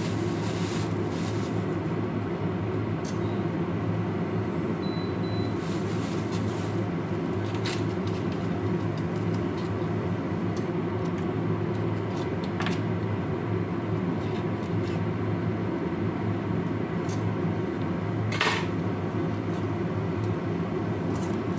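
Steady low machine hum, from a kitchen fan or appliance, with a few light clicks and handling noises and one sharper click near the end.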